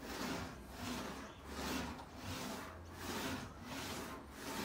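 Aluminium sheet rolled back and forth through an English wheel, stretching the panel to raise its curve. Each pass gives a rolling hiss that swells and fades, about one and a half passes a second.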